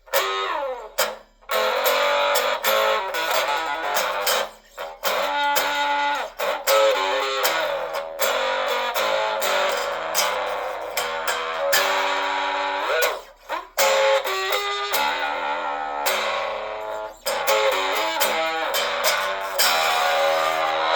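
Electric guitar played through a Marlboro amplifier: chords and riffs, broken by several short pauses.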